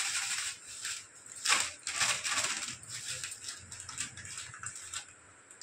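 Plastic spice packet of dried fenugreek leaves (kasuri methi) crinkling and being tapped as the leaves are shaken out over a bowl of flour. It is a rapid, irregular run of rustles and small taps that thins out after about three seconds.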